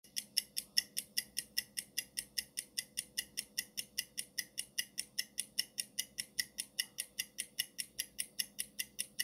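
Countdown-timer clock ticking sound effect: a steady run of quick, even ticks, about five a second.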